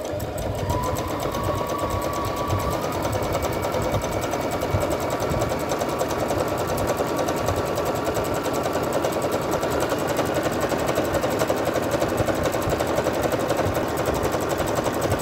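Brother LX27NT electric home sewing machine running steadily at speed, its needle and feed making a fast, even clatter as it sews a decorative stitch through cotton cloth.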